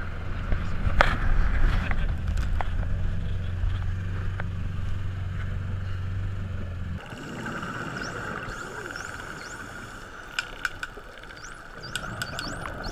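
A boat's engine running at speed with wind rushing past, then about seven seconds in an abrupt switch to underwater sound: a steady hiss with bottlenose dolphins whistling in short rising sweeps, and a few clicks.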